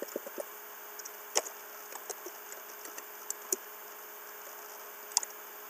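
Computer keyboard keystrokes and mouse clicks, a quick run of taps at the start and then single clicks every second or so, over a steady faint hiss.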